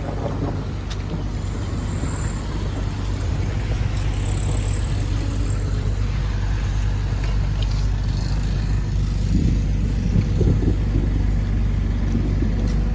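Road traffic: vehicle engines running, with a steady low engine hum.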